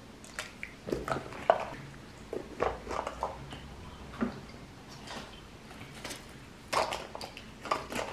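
Small cosmetics being packed into a leather handbag: irregular light clicks, rustles and soft knocks as the items go in and the bag's flap is handled.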